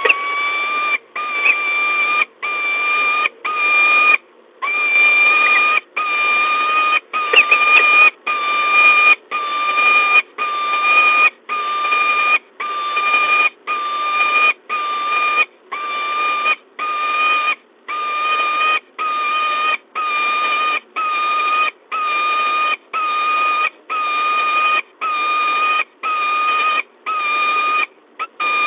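Peregrine falcon giving long, drawn-out calls over and over, each nearly a second long at an even pitch, about one call a second.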